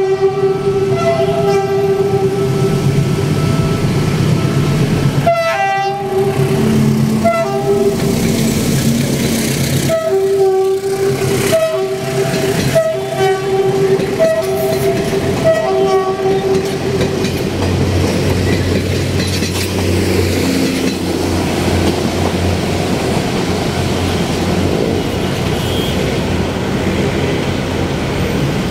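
Train horn sounding one long blast of about five seconds, then a string of shorter repeated blasts, followed by the low rumble of the train rolling by.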